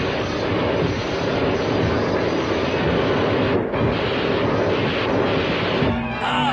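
Cartoon sound effects: the steady, aircraft-like engine drone of a flying robot, mixed with gunfire from police pistols. Orchestral music comes in near the end.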